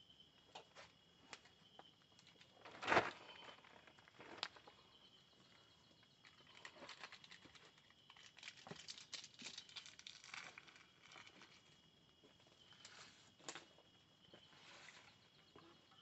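Wood campfire crackling with scattered pops, one sharp crack about three seconds in, and a busier patch of crackling and clattering wood in the middle as the fire is tended. A faint steady high drone of night insects runs underneath.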